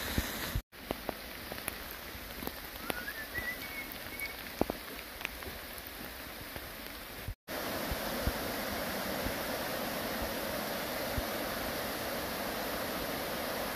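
Steady rain with scattered raindrop taps over the rush of a river in spate. After a cut about seven seconds in, the water's rush becomes fuller and steadier as the rapids are close by.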